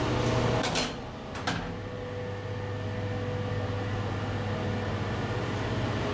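OTIS passenger elevator on a ferry: the doors shut about a second in with a couple of clicks and a knock, muffling the louder surrounding noise. After that comes a steady low hum with a faint steady whine as the car travels up.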